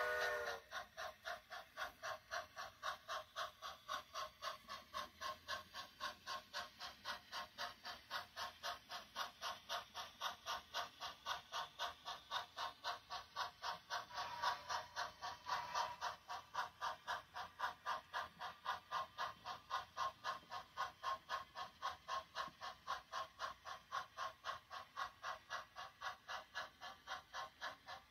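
Sound-equipped HO scale model steam locomotive chuffing at low speed as it pulls a short train, a faint, even beat of about three to four chuffs a second. The beat grows briefly louder about halfway through.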